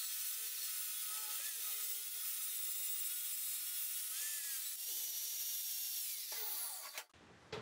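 Angle grinder with an abrasive disc grinding down the welds on square steel tubing: a steady high whine over hiss, its pitch dipping briefly as the disc bites. Near the end the pitch falls as the grinder winds down, and the sound cuts off about seven seconds in.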